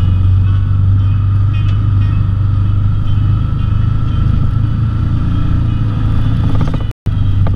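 Can-Am Maverick XMR side-by-side's engine running steadily under way on a rough dirt trail: a loud, even low drone with a few light rattles over the bumps. The sound drops out for an instant near the end.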